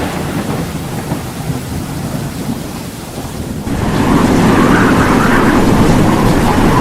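Thunderstorm sound: thunder rumbling and fading away, then about three and a half seconds in a louder, steady rush of heavy rain comes in.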